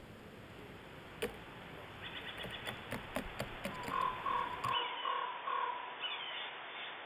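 A run of about five short, repeated animal calls, a little under half a second apart, preceded by scattered sharp clicks and taps.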